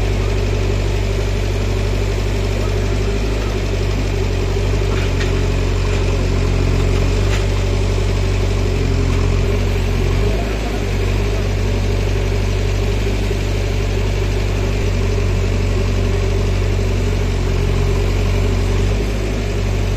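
JCB 3DX backhoe loader's diesel engine running steadily while its backhoe arm works, with a couple of faint knocks about five and seven seconds in.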